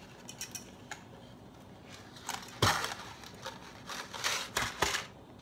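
Dry spaghetti being pulled out of its cardboard box: scraping, crinkling and rattling of the stiff strands against the cardboard. There are scattered small clicks, a loud burst about two and a half seconds in and a cluster of short bursts near the end.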